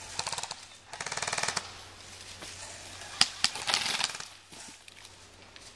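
Airsoft rifles firing rapid full-auto bursts: two bursts in the first second and a half, then a couple of sharp single snaps and another short burst about three and a half seconds in.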